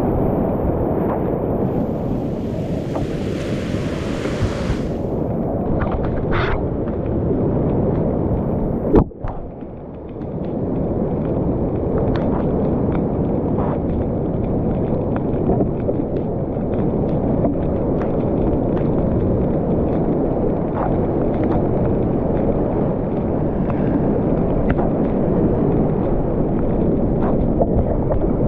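Loud, steady rush of whitewater rapids on a creek in high flood, heard up close from a kayak, with small splashes throughout. About nine seconds in there is a single sharp knock, after which the sound is briefly muffled before the rush returns.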